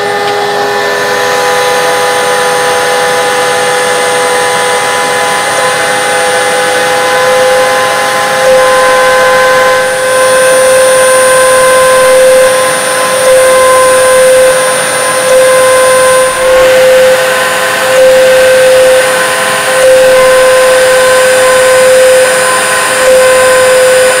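Dremel rotary tool spindle whining at high speed over a running shop vac as a CNC machine drills holes in a copper-clad circuit board. The sound is steady, with small swells and dips every second or two from about a third of the way in as the bit goes from hole to hole.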